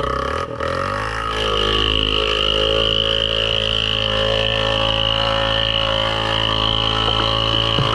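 ATV engine revving up over the first second and then held at steady high revs under load, with a few knocks near the end.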